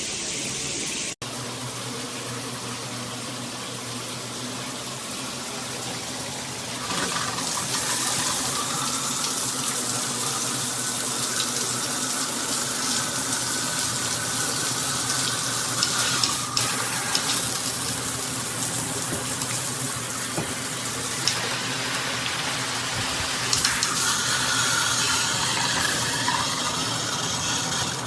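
Water spraying steadily from an overhead rain shower head, with a short break about a second in and growing louder about seven seconds in.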